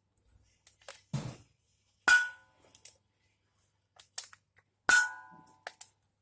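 Metal struck hard twice, about three seconds apart, each strike ringing briefly, with a duller knock and several lighter clicks and taps in between.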